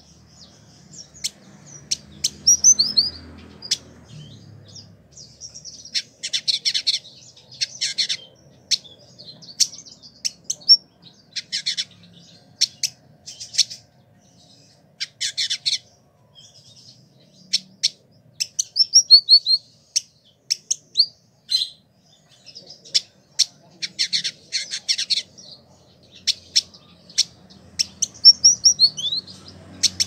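Male village indigobird singing in phrases. Bursts of fast, buzzy, rattling chatter alternate with short sliding whistled notes, with brief pauses between phrases.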